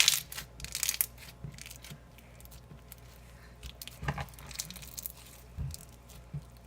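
Slime full of raw rice being squeezed and kneaded by hand: a run of small crackles and clicks, densest in the first second and again about four seconds in.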